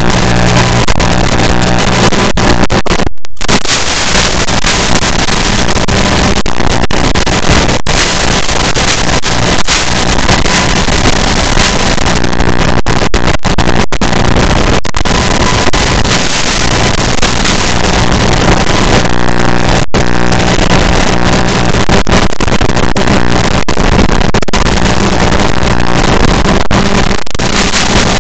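Electric motors of a small two-cell FPV quadcopter running hard, a continuous loud buzz with wind rush, picked up by the onboard camera mic and cutting out completely for an instant a few times, about three seconds in and near twenty seconds in.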